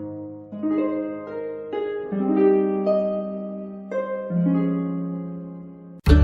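Background music of gently plucked notes, each one ringing out and fading. Just before the end it cuts abruptly to louder, strummed music.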